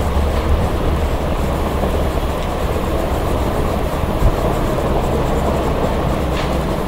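Loud, steady low rumbling background noise with no clear events in it.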